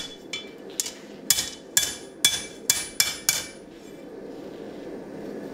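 Blacksmith's hand hammer striking a red-hot steel sword blade on an anvil, forging it flat. About seven ringing blows come roughly two a second and stop about three and a half seconds in, followed by a steady low rush.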